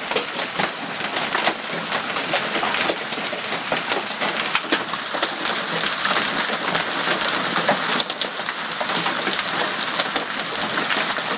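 A hailstorm with heavy rain: hailstones pelting a brick-paver driveway and a parked car. A dense steady patter is broken by many sharp separate clicks and pings.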